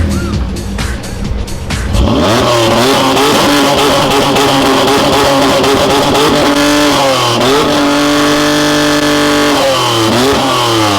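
Car engine revving, its pitch falling and climbing again several times, over background music. It grows loud about two seconds in and stays loud.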